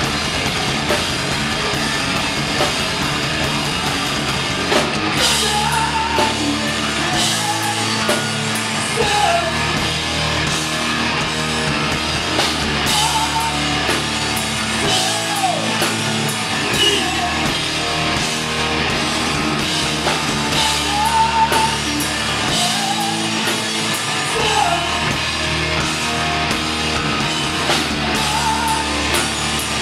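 Live rock band playing loudly: distorted guitar, bass and a drum kit, with a voice singing over it.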